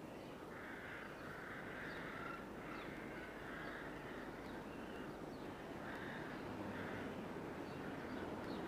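Rooks cawing, a run of calls in quick succession during the first few seconds and two more later, over a steady background hiss.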